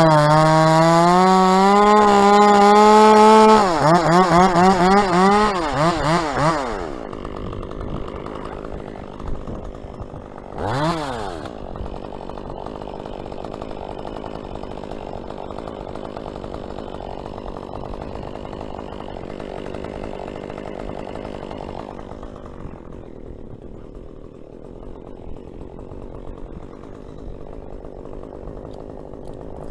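Chainsaw running at high revs with a steady whine. A few seconds in it wavers and winds down to a lower idle, gets one brief rev around eleven seconds in, and then idles, quieter after about twenty-two seconds.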